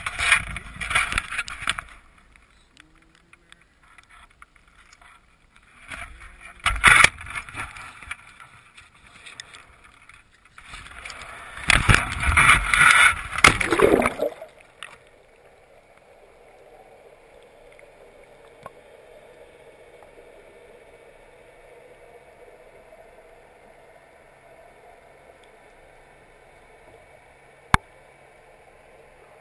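Water rushing and splashing around a crab trap as it drops into the sea and sinks, in three rough bursts, the longest about halfway through. After that comes a faint steady underwater hiss, with one sharp click near the end.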